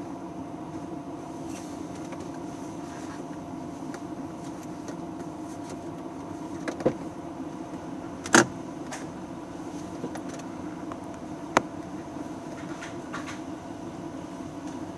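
A steady low hum, with three short sharp clicks or knocks; the loudest is about eight seconds in.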